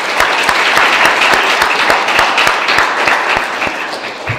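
Audience applauding: a dense spread of many hands clapping that begins to taper off near the end.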